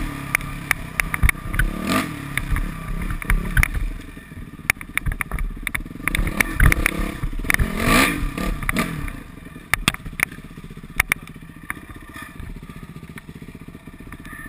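Modified Yamaha YZ426F four-stroke single-cylinder dirt bike engine revving up and falling back twice under riding, with clattering knocks from the bike, then running lower and steadier for the last few seconds.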